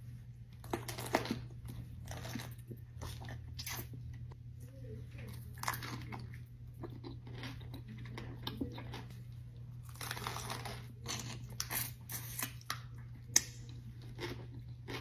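Close-up eating sounds: crunchy bites and chewing, irregular crackly crunches coming in uneven clusters, with a steady low hum underneath.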